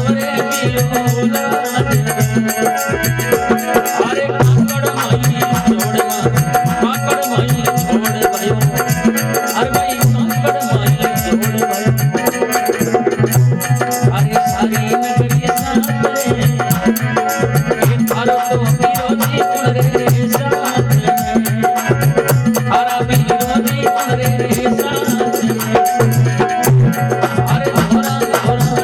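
Instrumental interlude of a Rajasthani folk bhajan: a fast, steady hand-drum beat under a melody on accompanying instruments, with no singing.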